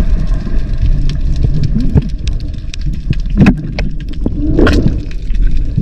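Underwater ambience picked up by a diver's camera on the sea bottom: a low rumbling wash of water with scattered sharp clicks, and two louder swells about three and a half and nearly five seconds in.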